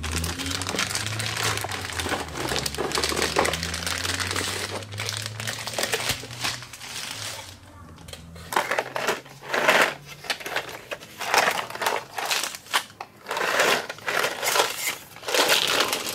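A toy playset box being opened and unpacked by hand: packaging crinkling and rustling, steadily at first, then in short separate bursts from about halfway on.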